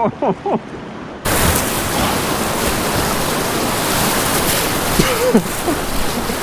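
Whitewater rushing and splashing loudly around the bow of an inflatable kayak running a rapid over a river block ramp, close to the boat-mounted microphone. The rush starts abruptly about a second in.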